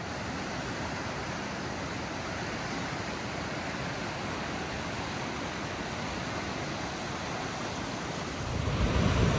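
Whitewater rapids rushing steadily over rocks, a continuous churning of water. It grows louder and deeper near the end.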